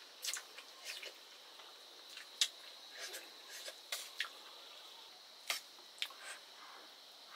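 Close-up eating sounds: irregular wet smacks and clicks of someone chewing, about a dozen in the span, the sharpest about two and a half seconds in and again about five and a half seconds in.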